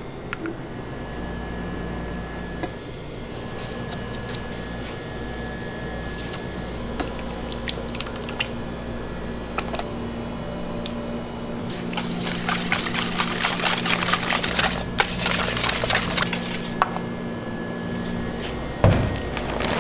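Pastry-kitchen prep sounds: a knife working split vanilla beans on a cutting board, then a thin stream of liquid pouring into a steel bowl of thick custard, over a steady low hum. A denser spell of crackling noise comes after the middle, and a single thump near the end.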